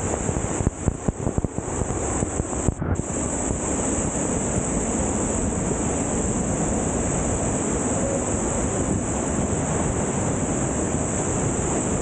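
Waterfall pouring into a plunge pool close to the microphone: a steady rush of falling water, with irregular splashes of water striking the camera during the first three seconds.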